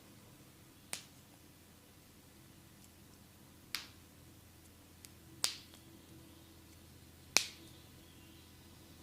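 Four sharp snaps made by a barber's hands during a massage, spaced a second or two apart, each cutting off quickly; the last two are the loudest. A faint low hum runs underneath.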